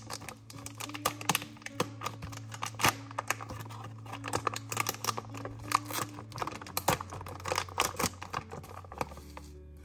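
Crinkly coffee bag being opened and unrolled by hand, with its wrapper rustling in a quick, irregular run of sharp crackles that thins out near the end.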